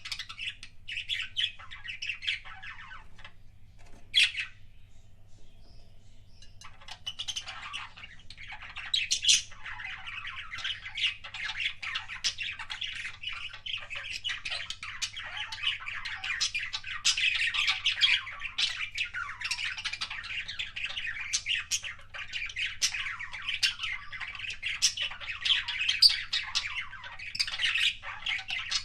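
Budgerigars chattering and warbling, laced with sharp clicking kiss-like sounds. The chatter breaks off after a short call about four seconds in and resumes a couple of seconds later, then carries on almost without pause.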